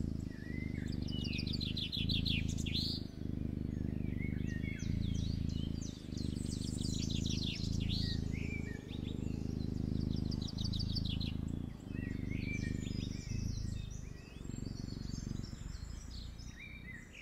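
Kitten purring while asleep, a low rumble broken by a short pause at each breath, about every second and a half. Birds chirp and trill in the background throughout.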